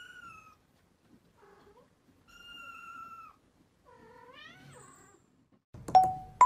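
Kittens mewing softly: two high, thin mews held about a second each, then a shorter mew that rises in pitch. Near the end a much louder sudden click with a short beep-like tone cuts in.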